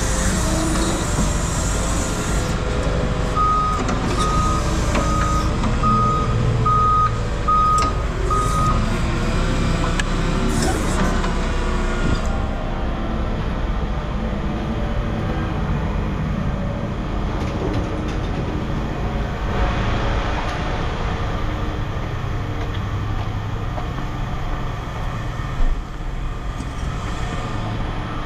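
Forklift engine running steadily while its backup alarm beeps about seven times, a little more than once a second, then stops.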